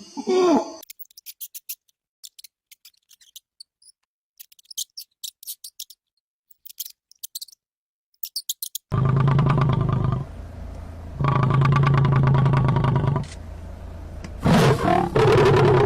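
Animal calls: first a run of short, faint, high-pitched chirps, then three long, loud, low calls, each held for one to three seconds.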